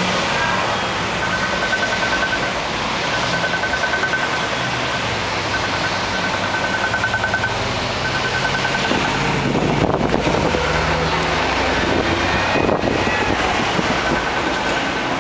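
City street traffic running steadily, with a heavier vehicle passing more loudly about two-thirds of the way through. A high electronic beeping repeats in short bursts of rapid pulses throughout.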